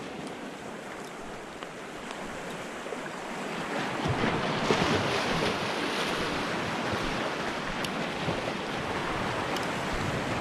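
Small waves washing and breaking over a rocky shore, with wind on the microphone; the rush grows louder about four seconds in.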